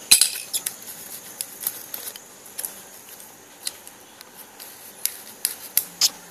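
Thin sheet metal of a cut-down can clicking and crinkling as fingers squeeze and shape it. The clicks are sharp and irregular, with the loudest just after the start and a quick cluster near the end.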